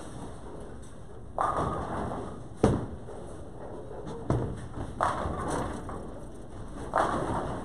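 Bowling alley sounds: bowling balls thudding onto the lanes and pins clattering. A single sharp thud about two and a half seconds in is the loudest. Three short bursts of clatter come around it, each dying away within a second.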